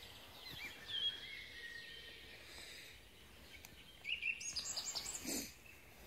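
Woodland songbirds calling: a few short whistled notes about a second in, then a quicker run of high chirps near the end, over faint outdoor background noise.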